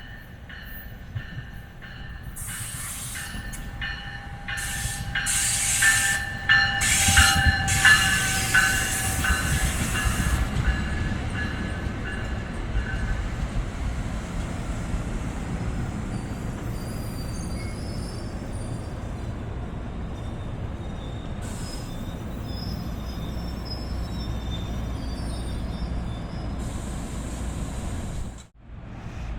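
Commuter train rolling past on the rails: a run of wheel clicks and metallic wheel squeal builds to its loudest about six to ten seconds in, then settles into a steady rumble with faint high squeals. The sound cuts off abruptly near the end.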